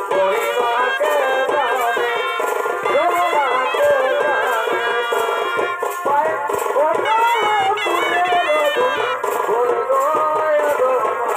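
Purulia Chhau dance music: a loud, ornamented melody with many pitch bends and quick turns over steady drumming.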